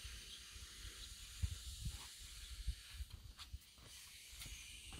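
Faint, steady hiss from a Blackstone propane griddle as a grilled cheese sandwich cooks on it, with a few soft low bumps.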